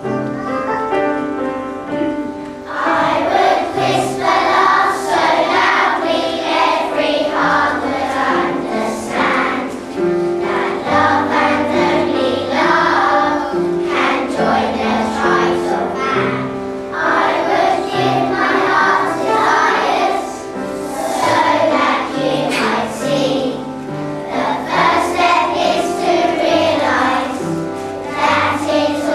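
A group of young children singing a song together in unison, over steady instrumental accompaniment. The accompaniment plays alone briefly before the voices come in about three seconds in.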